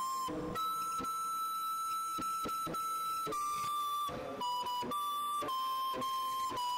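Background music: a high, pure-toned melody held on long notes, stepping between a few pitches, over light beats.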